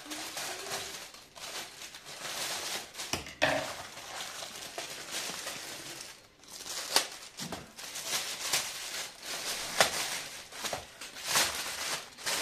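Scissors cutting open a plastic mailer bag, then the plastic rustling and crinkling in irregular bursts as the package is handled and a box is pulled out of it.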